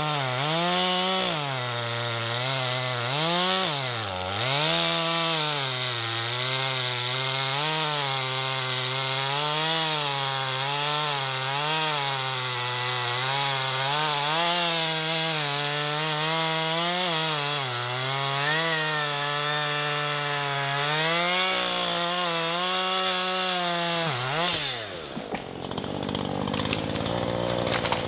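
Chainsaw running at high revs while cutting through a tree trunk, its pitch wavering up and down as the chain loads and unloads in the wood. Near the end the revs fall away to idle as the cut finishes.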